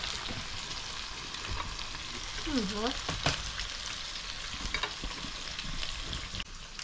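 Meat sizzling in a tabletop electric grill pot, a steady frying hiss, with a few light clicks over it.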